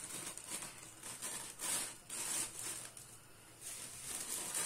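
Plastic roasting sleeve being cut with scissors and pulled open, the film crinkling and rustling in several short bursts.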